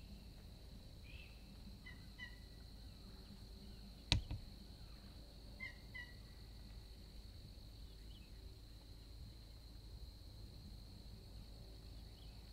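Wild turkey calling faintly with a few short clucks, plus one sharp loud crack about four seconds in, over a steady high-pitched whine.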